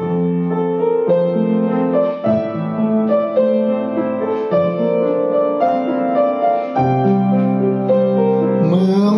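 Slow instrumental song intro: sustained chords that change about once a second.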